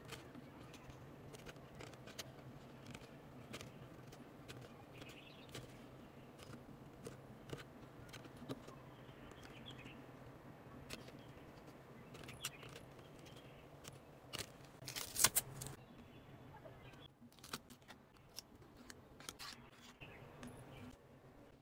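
Small scissors snipping through a thin clear plastic sheet: a run of short crisp snips, irregularly spaced, with a brief louder burst of noise about fifteen seconds in.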